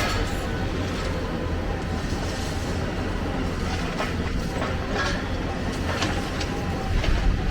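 Excavator diesel engine running steadily at work, with scattered metallic clanks and knocks every second or so.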